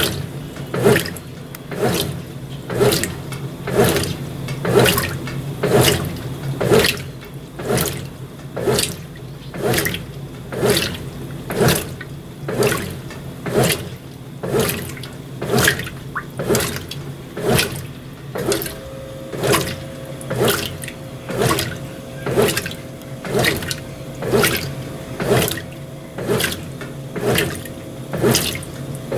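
Brastemp BWT12 top-loading washing machine agitating a load of delicates in water, each stroke a watery slosh about once a second, over a steady motor hum. A higher steady tone joins the hum about two-thirds of the way through.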